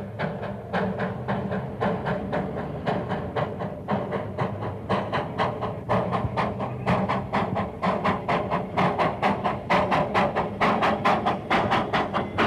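Darjeeling Himalayan Railway toy train's small steam locomotive chuffing as it pulls, its exhaust beats coming steadily faster, to about three or four a second by the end.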